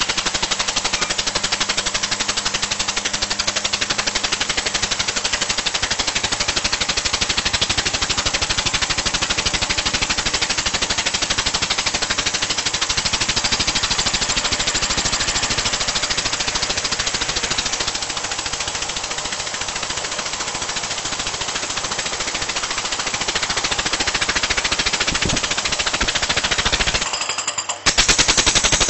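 Student-built model steam engine running fast on compressed air, its exhaust port blowing rapid puffs of air in a steady, fast clatter. Near the end it falters for a moment, then comes back louder, with a strong air hiss.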